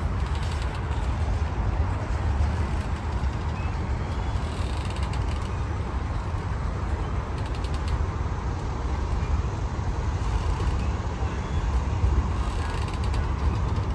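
Slow-moving freight train of coil steel cars and covered hoppers rolling past: a steady low rumble of wheels on rail, with a few short runs of clanking.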